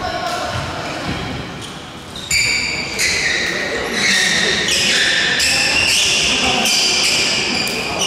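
Indoor badminton play: sneakers squeaking on the wooden court floor in a run of high, drawn-out squeals, with sharp racket-on-shuttlecock hits between them.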